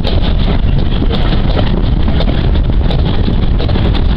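Heavy wind noise on the microphone from a moving steam-hauled train, over the steady low rumble of the train running, with scattered small clicks and knocks.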